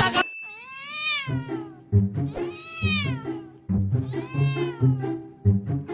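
A tabby cat giving three long meows, each rising and then falling in pitch, with a fourth starting near the end, over background music with a steady beat.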